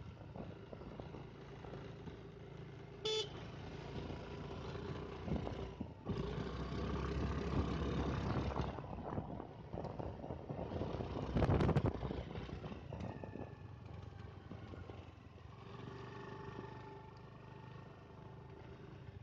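Motorcycle engine running along the road, heard from the bike with wind on the microphone. A short horn toot comes about three seconds in, and a loud rushing burst of wind noise follows near the middle.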